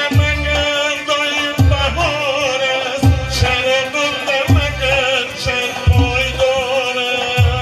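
Folk music in a Middle Eastern style: a singing voice with instrumental accompaniment over a deep drum stroke about every second and a half.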